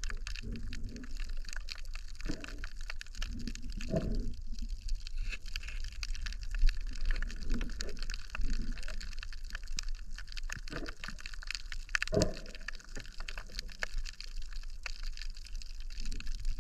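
Underwater reef ambience: a dense, steady crackle of tiny clicks, the sound typical of snapping shrimp, with irregular low gurgles of water and bubbles as the catch on the spear is handled.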